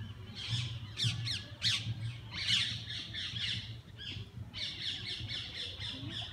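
Birds calling: quick, sharply sweeping high calls in the first half, then a fast run of repeated notes, several a second, near the end.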